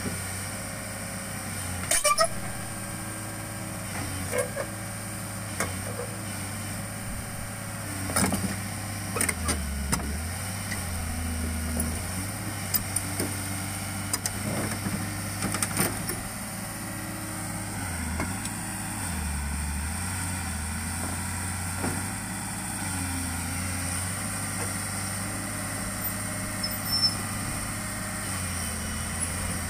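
Heavy diesel engine running steadily, its note dropping lower several times for a second or two, with scattered sharp metal clanks and knocks.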